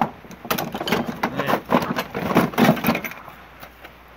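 Metal hand tools (sockets, wrenches, screwdrivers) clattering and clinking against each other as they are shifted around in a wooden drawer. The clatter thins out about three seconds in.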